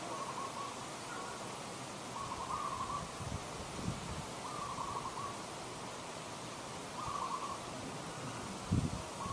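An animal calling: four short trilled calls, each under a second and held at one pitch, repeated about every two seconds over a steady background hiss.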